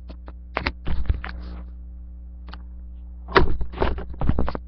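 Handling noise close to the microphone: a run of knocks and rustles in two bursts, about a second in and again about three and a half seconds in, over a steady low electrical hum.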